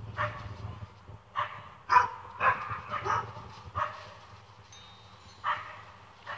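Dog barking in short, irregular barks, about eight of them, the loudest about two seconds in: alarm barking at strangers beyond the yard fence.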